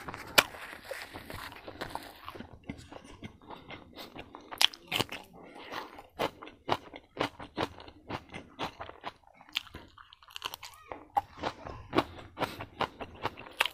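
A person chewing a mouthful of food, with irregular crunchy, wet mouth clicks a few times a second.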